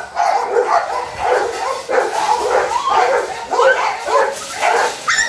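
Puppies barking over and over, about two barks a second.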